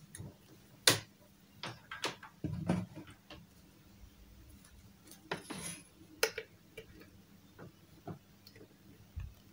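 Handling noise as a cable is plugged into a desktop CNC router: a sharp click about a second in, then scattered lighter clicks, knocks and brief rustles.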